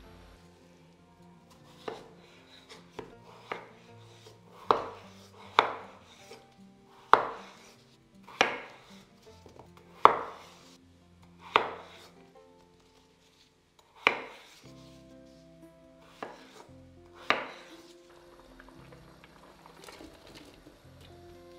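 Chef's knife cutting potatoes into chunks on a bamboo cutting board: about a dozen sharp knocks of the blade hitting the board, one every second or two, at an uneven pace.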